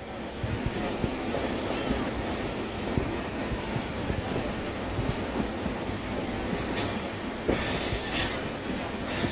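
Moving passenger train: steady rumble of wheels on the rails with irregular knocks and clatter, and a louder stretch of high-pitched hiss and screech about three-quarters of the way through.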